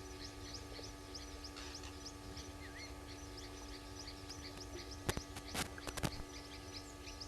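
Short high chirps repeating two or three times a second from a small calling animal, over a steady low electrical hum. A few sharp clicks come about five to six seconds in.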